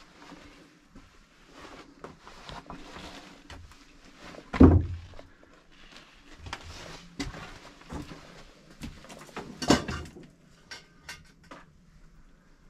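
Scattered scuffs, knocks and clicks of someone moving over a rubble-strewn floor, with two heavier thumps, one about four and a half seconds in and one near ten seconds.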